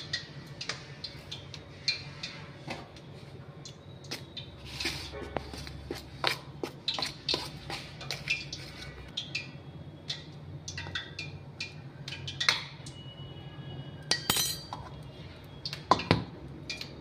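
A metal spoon clinking and tapping against a stainless-steel bowl of flour, with scattered sharp clicks and a few louder knocks near the end as the bowl is handled. A low steady hum runs underneath.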